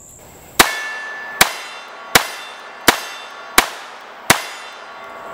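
Six pistol shots from a Beretta Model 81 Cheetah in .32 ACP, fired at a steady pace about 0.7 s apart, each followed by a short ringing tail.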